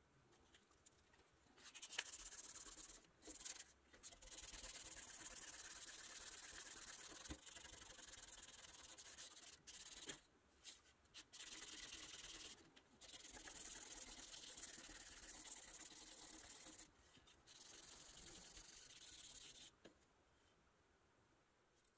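Compressed-air tool blasting in long trigger-held bursts: a steady high hiss that starts about two seconds in, breaks off briefly several times, and stops near the end.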